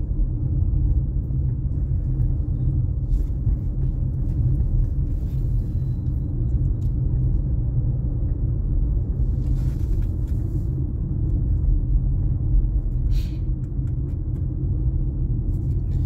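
Steady low rumble of a car being driven, engine and road noise heard from inside the cabin.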